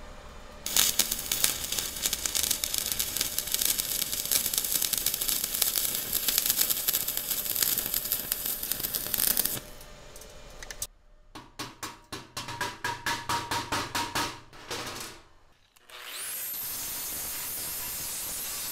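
Stick (shielded metal arc) welding: a thin 2 mm electrode at about 40 amps DCEN crackling and sizzling as it runs a bead on thin 1.5 mm steel tube without burning through. After a short pause comes a run of short crackling pulses, about three or four a second, for some four seconds. Near the end a steady hiss starts, with a high whine rising into it.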